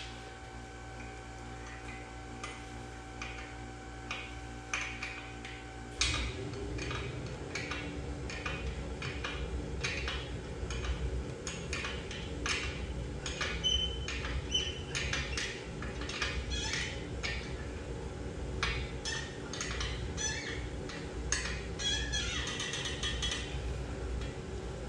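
Repeated metallic clinks, taps and knocks of hand tools being worked on a heavy truck wheel, over a steady hum that grows louder about six seconds in.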